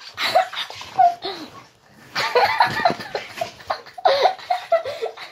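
A girl laughing in short repeated bursts, dipping briefly about two seconds in and then laughing harder.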